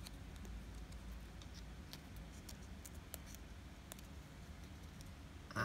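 Faint scattered clicks and ticks of a thin printed cardboard stand being folded and slotted together by hand, over a low steady hum.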